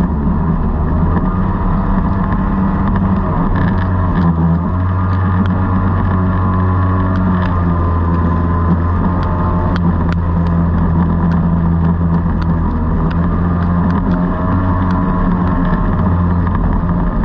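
Kingfisher jet boat's engine running steadily under way upriver, its pitch dipping briefly about four seconds in, with water rushing along the hull.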